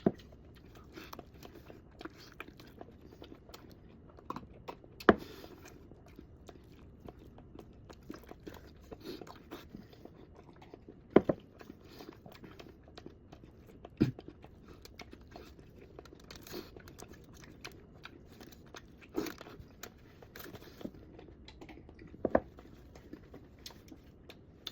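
Close-up chewing and biting of a large burrito, a continuous soft mouth-noise chewing broken by scattered sharp clicks and crunches, the loudest at intervals of a few seconds.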